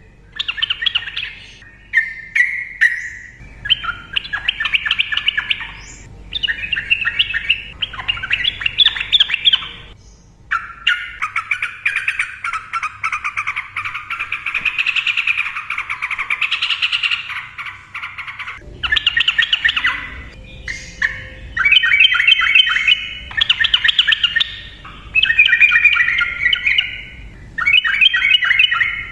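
Sooty-headed bulbul (trucukan) singing a rapid, chattering song. It comes in phrases of a second or two with short breaks, and one long unbroken run of about seven seconds in the middle.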